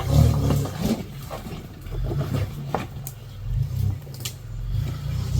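A 4x4 truck's engine running with low rumbling swells of throttle that come and go, with a few sharp knocks in between.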